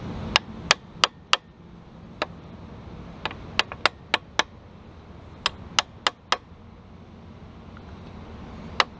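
Light hammer taps on the side of a connecting-rod cap on a GM 3.1L V6, loosening the cap from the crankshaft journal. The sharp metal taps come in short runs of three to five, about three a second, with pauses between.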